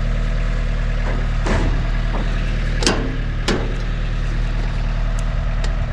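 An engine running steadily at idle throughout, with a few sharp knocks over it.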